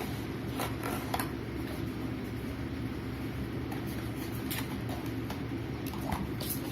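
A few short clicks and light rustles of a small cardboard and plastic package being handled and opened, over a steady low background hum.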